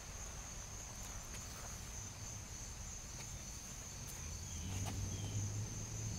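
Quiet outdoor ambience: a steady high-pitched insect drone, with a low hum growing louder about three-quarters of the way in.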